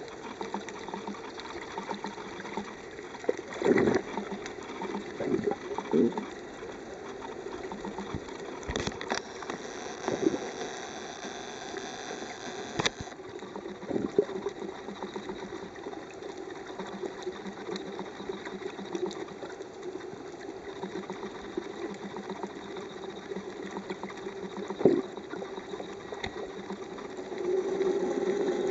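Muffled, steady drone of water and a boat engine as heard by an underwater camera, with several dull knocks.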